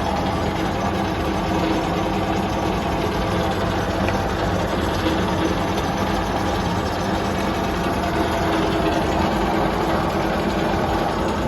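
Atlas TH54 metal lathe running under power, its motor and drive making a steady, even hum.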